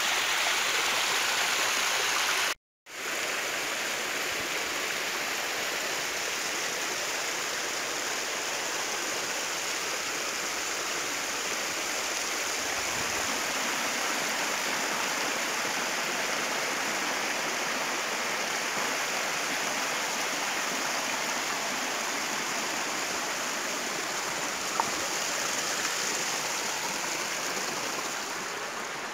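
Shallow stream water rushing and splashing over granite rocks, a steady rush. It cuts out completely for a moment about three seconds in.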